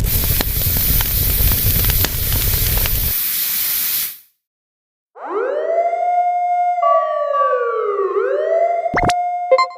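Loud, even rushing noise for about four seconds that cuts off sharply. After a short silence comes a siren-like wail that swoops up, falls and rises again, with a sharp hit near the end.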